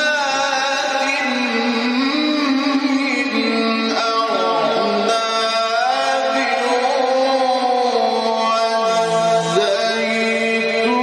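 Male Quran reciter chanting in the melodic mujawwad style, drawing out long ornamented notes whose pitch slides up and down.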